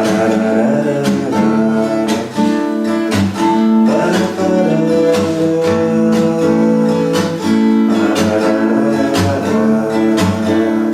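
Acoustic guitar strummed and picked, chords ringing on between repeated strokes.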